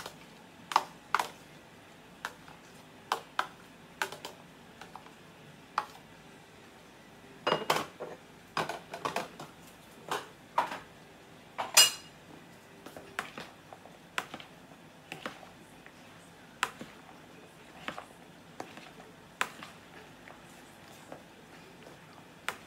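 A metal fork clinking and tapping against a mixing bowl and a plastic container in irregular strokes as pineapple pieces are added and the salad is stirred. There is a quick run of clinks about a third of the way in, and one loud ringing clink about halfway through.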